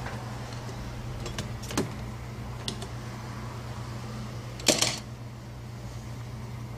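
A few light clicks and one louder clatter about two-thirds of the way through, from small tools or phone parts being handled on a workbench, over a steady low hum.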